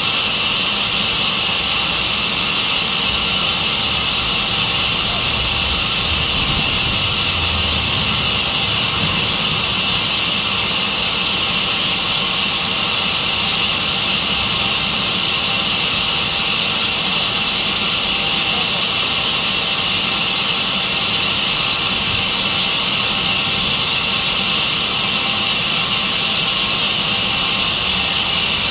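Sawmill band saw running steadily, a loud, even high-pitched hiss with a low rumble beneath that does not change.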